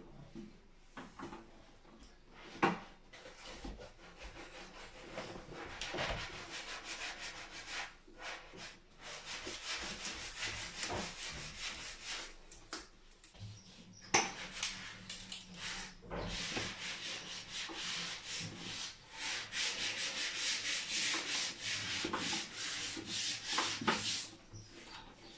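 Electrical cables being handled and worked into the breakers of a consumer unit: irregular rubbing and scraping of the wires against the board, with a few sharp clicks, the loudest about two and a half seconds in and again about fourteen seconds in.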